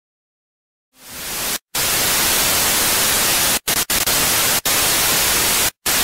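Analog TV static: a steady hiss that fades in after about a second of silence, cut off briefly several times.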